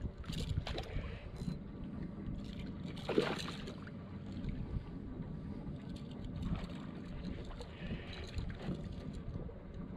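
Wind rumbling on the microphone over a steady low hum. A hooked redfish splashes at the surface about three seconds in, and a spinning reel clicks as it is wound in.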